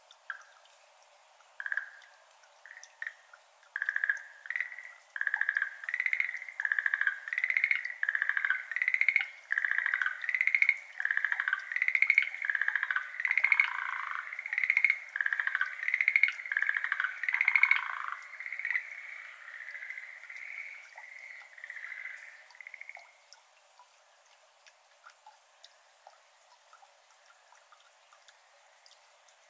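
Schlegel's green tree frog calls: a run of short trilled calls that starts sparse, comes thick and fast through the middle, then fades and stops about three-quarters of the way in. After that only faint water drips remain.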